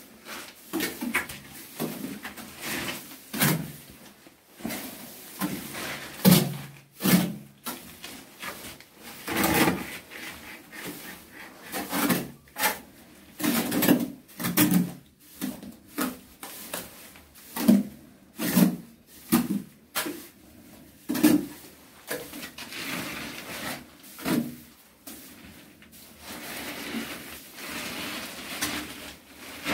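Rough scraping strokes of a hand tool working a wet cementitious waterproofing coat over a bathroom's cement floor. The strokes come irregularly, about one a second, with longer, steadier rasping near the end.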